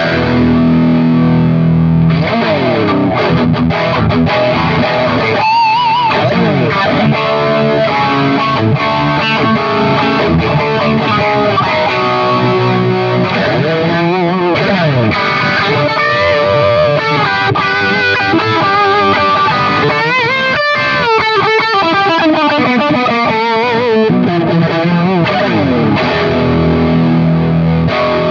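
Electric guitar played through an M-Vave Mini-Amp preamp pedal on a distorted amp voicing. It plays held chords and single-note lead lines, with bent notes and vibrato in the middle.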